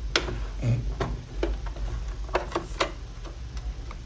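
Irregular light clicks and taps from a Singer M1605 sewing machine being worked by hand as the bobbin thread is brought up to the needle plate.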